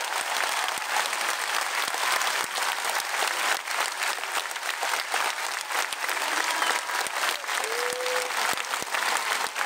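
Large concert audience applauding: dense, steady clapping from many hands, with one short call from the crowd about eight seconds in.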